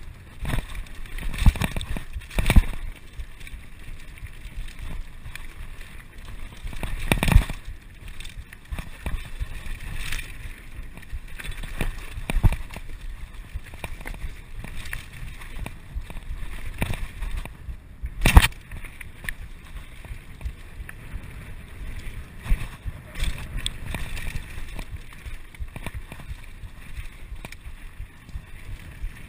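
Mountain bike riding fast down a rough dirt and rock trail: a steady rattle and crunch of tyres and bike over the ground, broken by several sharp knocks from bumps, the loudest about 2.5 and 18 seconds in.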